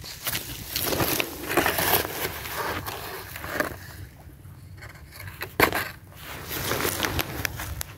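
Close handling noise: irregular rustling and scraping in dry grass and a plastic bag, with one sharp knock about five and a half seconds in.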